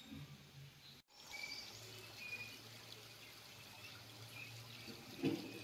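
Faint outdoor ambience: a low steady hum with a few short, faint high chirps. The sound drops out completely for an instant about a second in.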